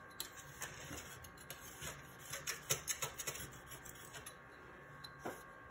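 Faint handling noise as a hand tool and a wipe are rubbed and scraped across a smooth, hard work surface, with scattered small clicks and taps.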